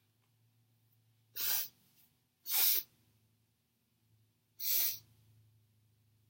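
A woman sneezing three times, each sneeze a short, sharp burst; the first two come about a second apart and the third after a longer pause.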